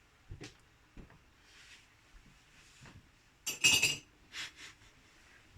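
A few light knocks, then a short, louder clatter of kitchenware a little past halfway, followed by two softer clicks.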